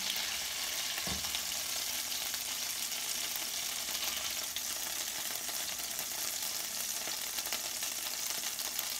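Hot oil sizzling and crackling steadily in a frying pan where chicken drumsticks are frying, with a single soft knock about a second in.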